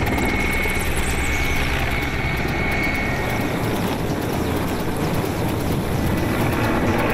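Aircraft noise: a steady engine rumble with a high whine that fades out about three seconds in, and a whistle that falls in pitch just after the first second.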